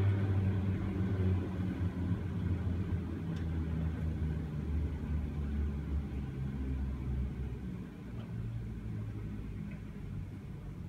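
Aerial ropeway running as a gondola pulls away from the summit station: a steady low mechanical hum and rumble from the moving haul cable and its machinery, slowly fading.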